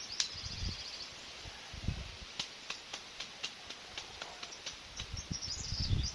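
Tall cogon grass rustling and snapping as it is pulled and cut by hand, with low thumps and a quick run of sharp clicks. A high chirping trill sounds briefly near the start and again near the end.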